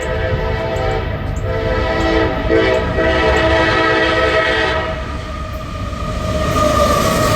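Locomotive horn sounding a chord in several blasts over the low rumble of a passing train, with the pitch of the held last blast sliding down near the end.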